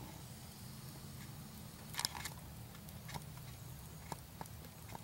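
Faint steady low hum with a few soft, short clicks, the clearest about two seconds in.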